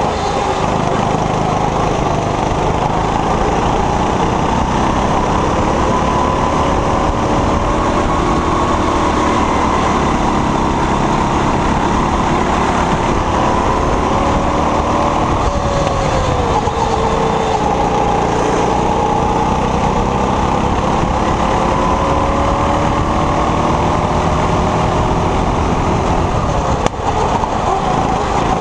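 Honda four-stroke engine of a rental go-kart running under load, heard from the driver's seat. Its pitch rises and falls with the revs, dipping briefly a little past halfway and then climbing again.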